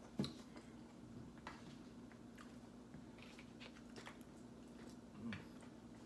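Quiet eating at a dinner table: chewing and scattered light clicks of forks on plates and foil trays, over a steady low hum. A sharp knock just after the start is the loudest sound.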